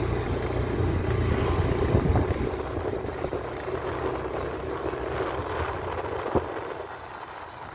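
Vehicle running while moving, a steady low rumble with road noise that grows quieter over the last few seconds, with one short sharp tick near the end.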